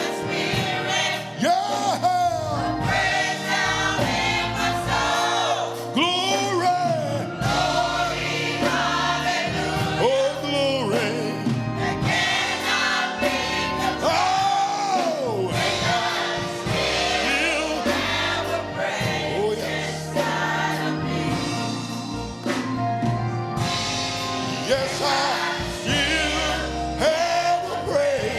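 Gospel music with a choir singing over band accompaniment: sustained chords and melismatic vocal runs.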